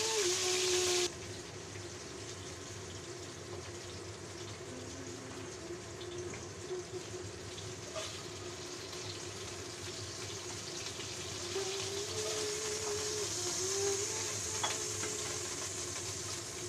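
Fish fillet pieces sizzling in hot oil in a stainless-steel wok: a steady frying hiss that drops in level about a second in. A few light taps and scrapes of a spatula on the wok.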